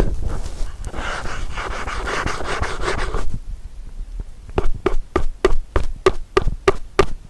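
Ear-cleaning tools worked against the ear of a binaural microphone: scratchy rubbing for about three seconds, then after a short pause a steady run of light taps, about five a second.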